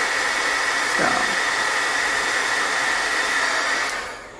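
Craft embossing heat gun blowing hot air onto a button to melt embossing powder: a steady rushing hiss with a high whine. Near the end it is switched off and runs down.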